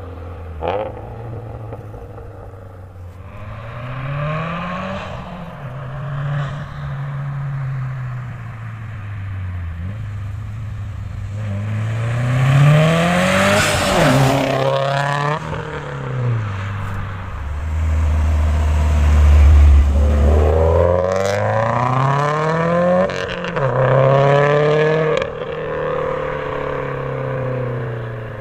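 2015 Subaru WRX STI's turbocharged flat-four, running an equal-length header, catless downpipe and Invidia Q300 cat-back exhaust, accelerating hard through the gears. The exhaust note climbs, drops at each shift and climbs again several times, with a deep low steady stretch a little after the middle.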